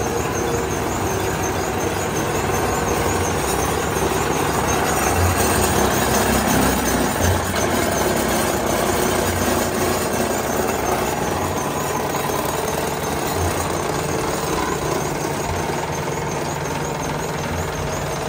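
LYAN-1850 solidboard laminating machine running: a loud, steady mechanical din of rollers and conveyors, with dull low thumps every second or two as board sheets feed through and stack.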